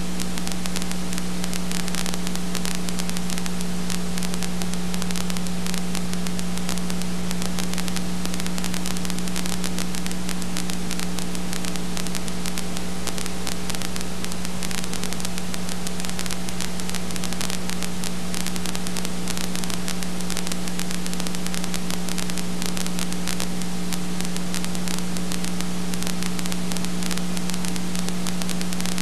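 Steady hiss with a constant electrical hum and nothing else: the noise of a home-movie film transfer that carries no recorded sound.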